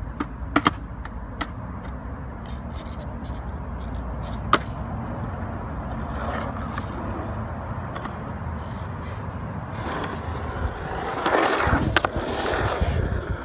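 Skateboard wheels rolling on a concrete bowl, a steady rumble broken by a few sharp clacks, the loudest about four and a half seconds in. The rolling grows louder for a couple of seconds near the end as the board passes close by.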